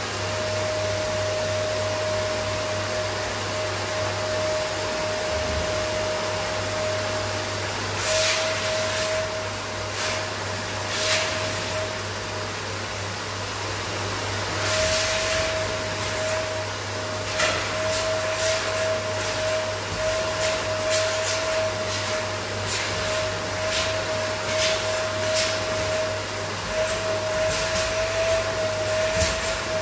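Vacuum cleaner with a hose attachment running steadily, with a constant whine over the motor's hum. From about eight seconds in, repeated short hissing rushes come in as the nozzle is moved about.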